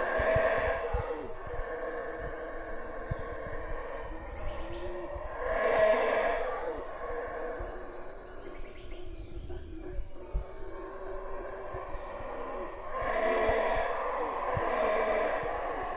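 Yucatán black howler monkeys howling in deep, swelling bouts, loudest about six seconds in and again near the end, over a steady high-pitched insect drone.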